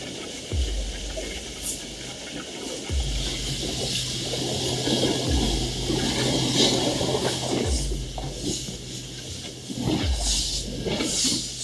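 Water rushing and splashing past a fast-moving boat, with wind on the microphone, under background music whose low bass note repeats about every two and a half seconds.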